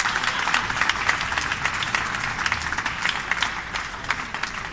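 Audience applauding: many hands clapping in a dense patter that thins out a little near the end.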